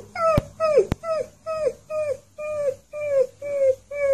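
Fluffy husky-type puppy giving a run of short howling calls, about two a second, each dropping in pitch. The calls grow quieter and flatter as they go, and a couple of sharp clicks sound in the first second.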